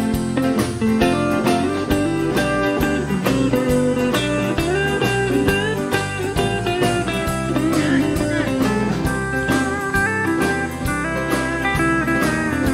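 Country band playing an instrumental break: electric guitar taking the lead, with bent notes, over strummed acoustic guitar, bass and steady drums.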